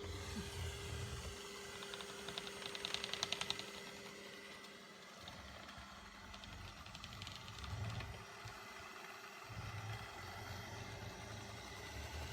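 ILIFE robot vacuum running with a faint steady hum and low rumble, with two short spells of rapid clicking rattle.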